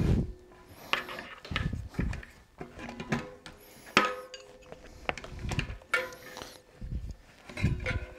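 Irregular metallic clinks and knocks, several with a brief ring, with a few dull thuds, as a bicycle's front wheel is worked into the fork to line up the through axle.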